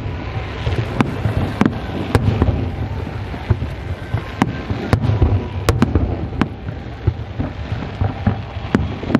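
Aerial fireworks shells bursting during a display: about a dozen sharp bangs at uneven intervals over a continuous low rumble of further bursts.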